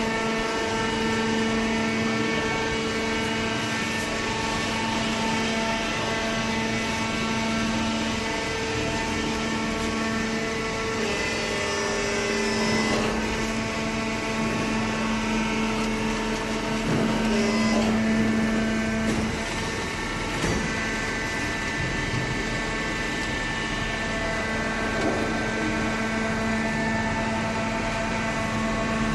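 Hydraulic cardboard baler running, its pump motor giving a steady hum with a constant pitch, swelling slightly louder about two-thirds of the way through.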